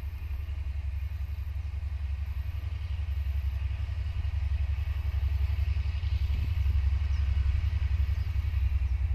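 Taiwan Railway diesel-electric locomotive R136 approaching, its engine a low, rapidly pulsing rumble that grows steadily louder.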